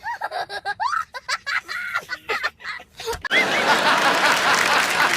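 Snickering and short bursts of laughter, then about three seconds in a sudden steady rush of noise takes over as the loudest sound.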